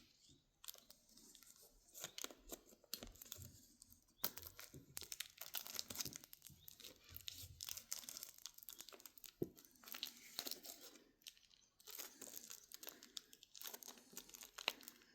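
Faint crinkling, scratching and tearing of the plastic shrink-wrap on a steelbook case as fingers pick at it, in irregular short crackles; the tough plastic is hard to get into.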